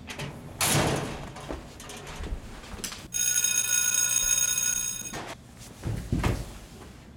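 Edited sound effects: a loud rush of noise, then a high ringing tone held for about two seconds, then a deep hit.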